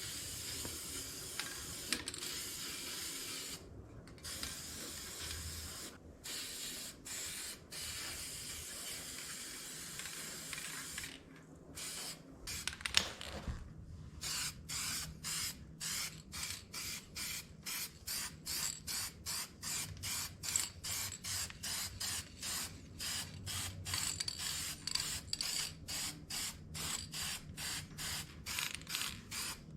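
Paint spraying: long steady hissing passes for the first ten seconds or so, then a quick run of short spray bursts, about two or three a second, to the end, while a final coat goes onto tractor sheet metal.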